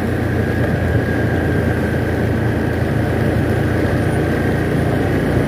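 Engine of the vehicle carrying the camera running steadily while it travels along the road, with an even rushing of tyres on the wet asphalt.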